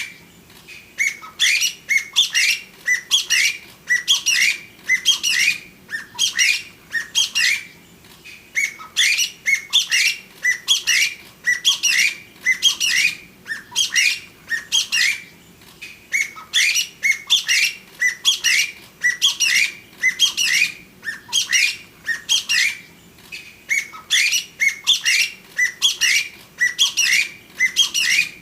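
Chinese bamboo partridge calling: loud bouts of quick, upward-sweeping notes, each bout about a second long, repeated over and over with short gaps between them.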